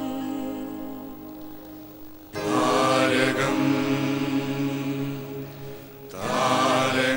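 Choir singing long held chords without words, fading between phrases and swelling back in loudly twice, about two and a half seconds in and again near the end.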